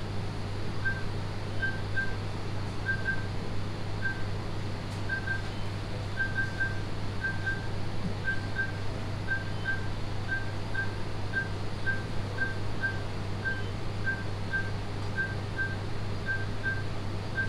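A patient monitor beeping with the heartbeat: short high beeps, often doubled, about twice a second, over a steady low hum of the lab equipment.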